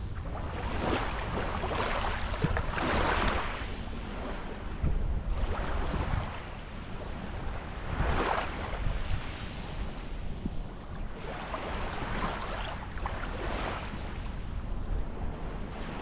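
Small Black Sea waves washing up and running back over a shelly sand beach at the water's edge, a surge of hiss every few seconds. Wind rumbles on the microphone underneath.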